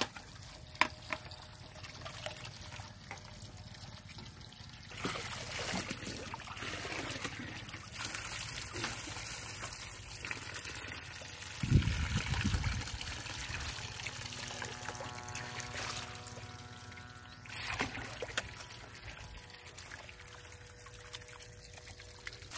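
Water sloshing and trickling in a steel bowl as raw chicken pieces are washed by hand in turmeric water. About halfway through, the bowl is tipped and the water pours out onto the ground with a heavy splash.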